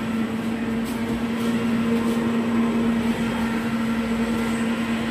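A 4000-watt skylight searchlight running: its cooling fans blow steadily under an even low hum.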